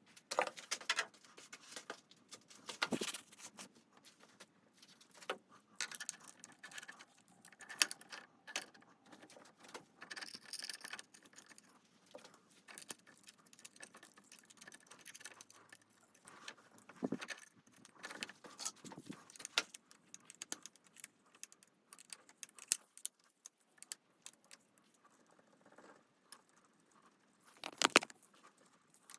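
Small steel parts and hand tools being handled: irregular light metallic clicks and clinks, with a few sharper knocks about three seconds in, around seventeen seconds and near the end.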